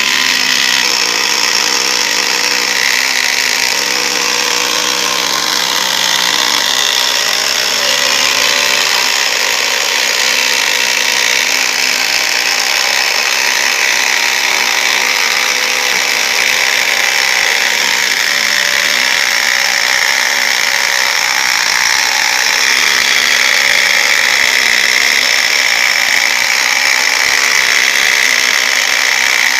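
Homemade power saw running steadily at full speed, a dense high machine whine, starting abruptly.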